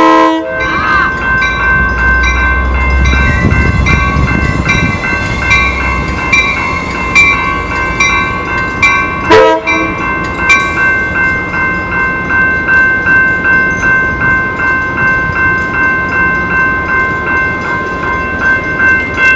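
Railroad grade-crossing warning bell ringing steadily, struck a little more than once a second, while an Amtrak passenger train rolls through with a low rumble. The train's horn cuts off just at the start and sounds one short blast about nine seconds in.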